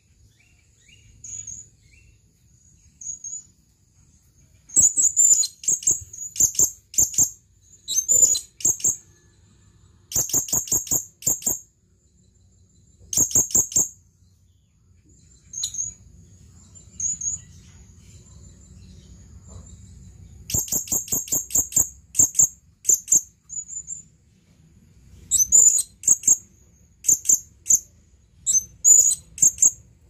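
Male blue-crowned hanging parrot (serindit) calling: bursts of rapid, shrill, high-pitched chirps, several notes each, repeated with short pauses between. It is a male's call to a female.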